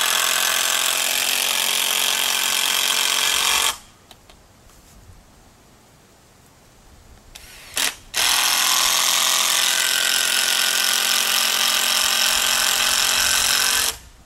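Cordless drill driving screws into wooden 2x4 corner blocks. The motor runs in a steady whine for about four seconds and stops, then after a brief blip runs again for nearly six seconds.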